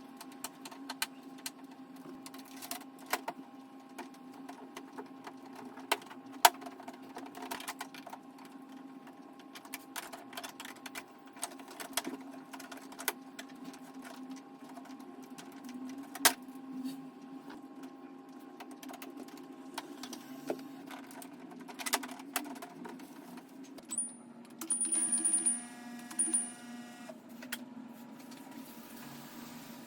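Steady low hum with scattered light clicks and knocks, like parts being handled. About 25 seconds in, a brief mechanical whir lasts roughly two seconds.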